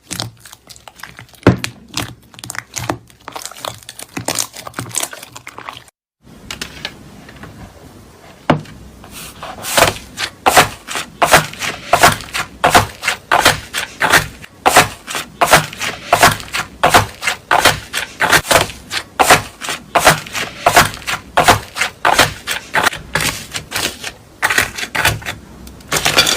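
Clear slime squeezed and pressed by hand, giving sharp clicks and pops. They are sparse at first, then after a brief gap about six seconds in they come steadily at about three or four a second.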